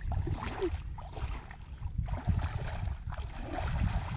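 Bare feet wading and splashing through shallow muddy water, with steady wind noise on the microphone.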